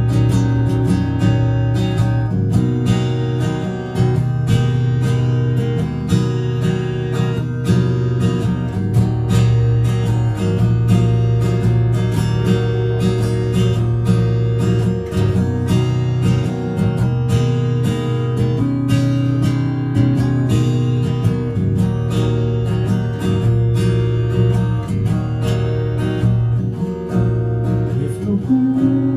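Acoustic guitar strummed in a steady, even rhythm, ringing chords played live at a loud, even level.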